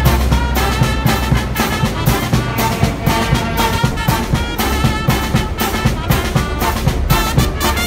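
Brass band music: trumpets and trombones playing over a steady beat and low bass notes.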